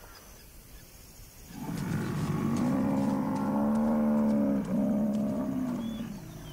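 An African buffalo gives one long, low, moo-like bellow of about four seconds, starting a second and a half in. Its pitch rises a little and falls back, with a short break near the end.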